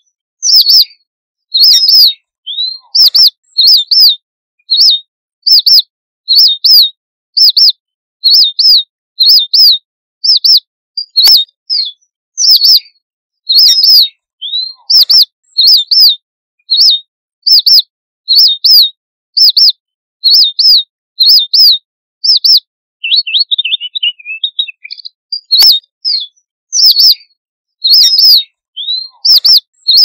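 Red avadavat (strawberry finch) giving its thin, high flock-gathering call over and over, about one or two notes a second and often in pairs. About three-quarters of the way through there is a short, lower twittering phrase.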